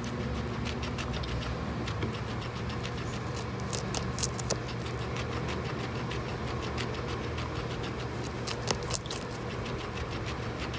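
Guinea pig chewing a strip of green bell pepper: a run of small, crisp, irregular crunches, with a louder one about nine seconds in, over a steady low hum.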